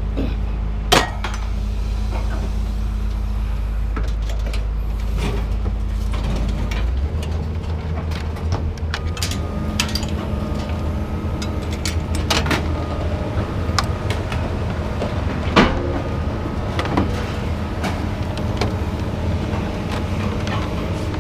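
A vehicle engine running steadily, its low note shifting about seven seconds in, with several sharp clanks of scrap metal being unloaded; the loudest clank comes about three-quarters of the way through.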